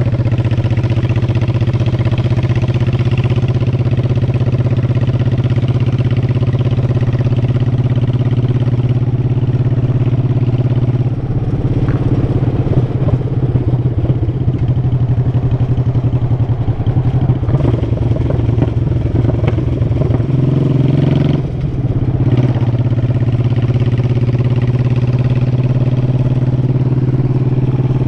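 Honda Shadow Sabre 1100's V-twin engine running on the road, heard from the bike itself, with a steady low note. The note turns rougher about a third of the way in and dips briefly about three quarters of the way through.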